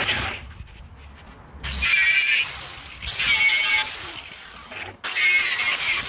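Angle grinder running against the steel drum of an old concrete mixer, stripping rust and paint, in short bursts of about a second with a high whine and quieter gaps between.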